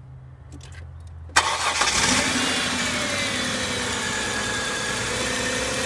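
2003 Kia Sorento engine starting suddenly about a second and a half in and settling into idle, its pitch easing down as it settles. The engine has a misfire on cylinder 1, traced to spark escaping through a leaky plug boot to the block.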